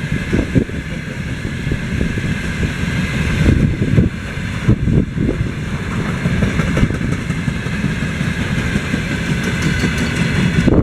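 Freight train rolling past, a loud steady rumble of wheels on rails with irregular knocks throughout.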